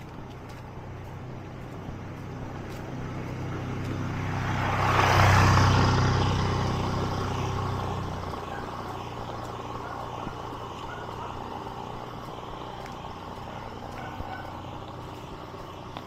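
A motor vehicle driving past: its engine and tyre noise grow louder for a few seconds, are loudest about five seconds in, then fade away.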